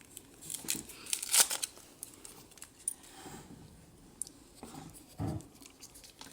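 Foil wrapper of a chocolate surprise egg being crinkled and peeled off, in short crackling bursts that are busiest near the start and thin out into small clicks.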